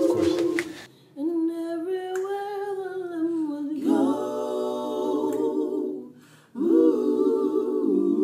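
A cappella vocal music: voices humming long held notes, partly in chords, in phrases broken by two short pauses, about a second in and about six seconds in.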